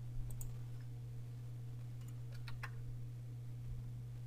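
A few faint clicks of a computer mouse, a couple near the start and a small cluster about two and a half seconds in, over a steady low electrical hum.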